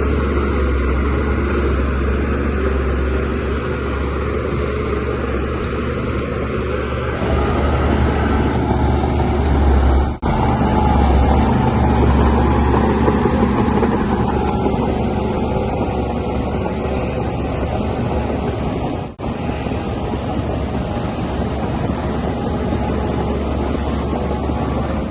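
Shantui DH17C3Pro bulldozer's diesel engine running steadily while working, with a deep low hum. The sound drops out briefly twice.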